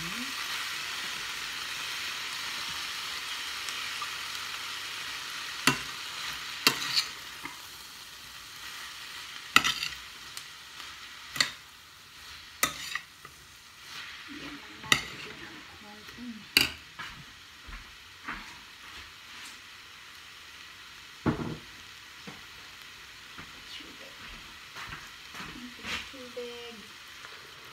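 Hot stainless steel frying pan sizzling as soaked glass noodles (sotanghon) go in among the green beans and shrimp. The sizzle is strongest at first and dies down after about seven seconds. A metal spoon clinks sharply against the pan about ten times as the noodles are stirred in.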